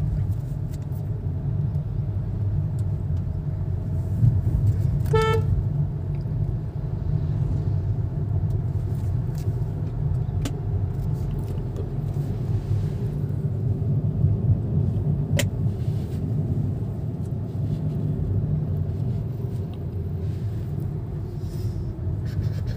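Steady engine and road rumble inside the cabin of a moving Hyundai Grand i10 Nios, with a short horn toot about five seconds in.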